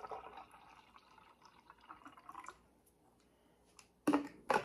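Iced coffee pouring from a bottle into a glass cup, the stream trailing off about two and a half seconds in. Near the end come two sharp knocks, the loudest sounds here.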